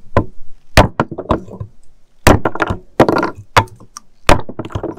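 Hatchet chopping a round of apple-trunk wood into smoking chunks on a hardwood block: a series of sharp wooden knocks, the loudest coming about every one and a half to two seconds, with lighter knocks between.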